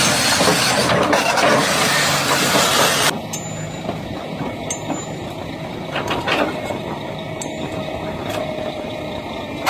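Heavy excavator's diesel engine and hydraulics working to push a large stone block onto a flatbed trailer. The first three seconds are loud and full of hiss, then the sound drops suddenly to a quieter, steady engine rumble with a few faint knocks.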